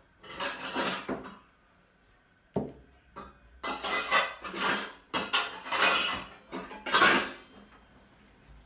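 Pots, lids and kitchen utensils clattering as they are handled. A short run of clatter comes first, then a lone knock, then a longer busy stretch of knocks and scrapes past the middle.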